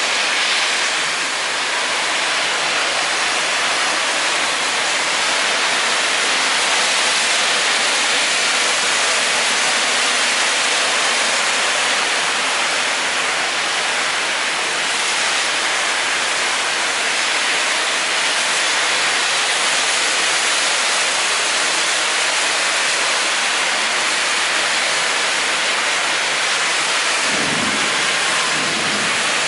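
Heavy rain pouring steadily in a thunderstorm downpour, an even, loud hiss of rain hitting the street, roofs and pavement.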